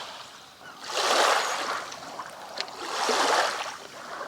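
Small waves washing onto a lakeshore, two soft swells of hiss that rise and fall about two seconds apart.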